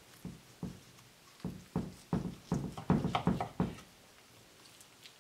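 A run of about ten soft knocks in quick, uneven succession, stopping about four seconds in.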